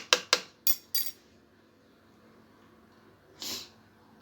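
A metal spoon clinking sharply against a dish about six times in quick succession as the garlic, lemon and honey mixture is handled, then quiet apart from a brief soft rustle about three and a half seconds in.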